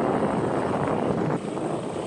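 A vehicle engine running under heavy wind rumble on the microphone, a dense, steady noise without a clear pitch.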